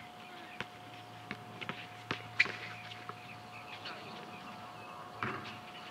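A basketball bounced on an outdoor hard court: a handful of irregular knocks, loudest about two and a half seconds in and again near the end, mixed with players' footsteps, over a faint steady hum.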